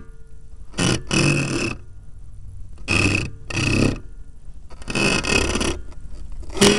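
Dry cutless bearing on a boat's propeller shaft groaning as the shaft and variable-pitch propeller are turned by hand, in about six short bursts. It is noisy because the bearing is water-lubricated and is running dry out of the water.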